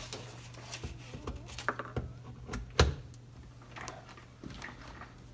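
A scatter of clicks and light knocks from a cable and connector being handled and plugged in, with one louder knock about three seconds in, over a steady low hum.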